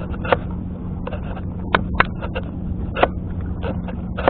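Sharp, irregular clicks and taps, about a dozen in a few seconds, as fish hanging on a multi-hook rig are handled and flap, over a steady low hum.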